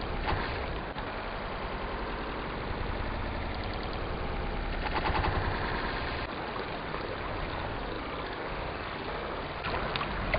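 River water running steadily, swelling briefly about five seconds in.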